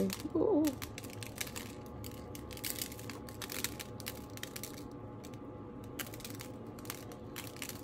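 Everything bagel seasoning shaken from a glass shaker jar: dry seeds and flakes rattling against the glass and shaker top in quick, irregular clicks.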